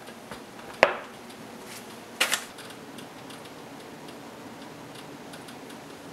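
A metal muffin tin being handled and set down: one sharp knock about a second in, then a quick rattle of three clicks a little over two seconds in, over a faint steady background.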